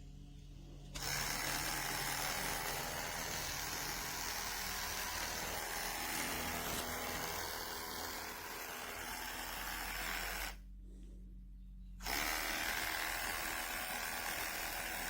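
Cordless electric pet hair clipper running with a steady buzz. It switches on about a second in, stops for about a second and a half around ten seconds in, then runs again.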